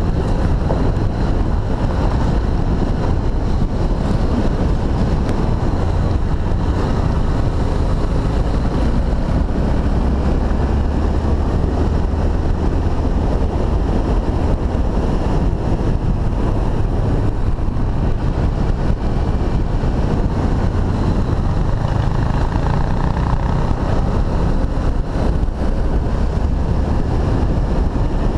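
Honda XRE300 single-cylinder four-stroke engine running steadily while riding, with heavy wind noise on the microphone.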